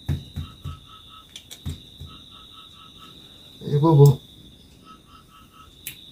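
Night insects, mainly crickets, trilling steadily, with a rhythmic chirping in short groups of four or five notes that repeat every second or so. About four seconds in comes a short, low vocal sound, the loudest thing heard, with a few soft knocks near the start.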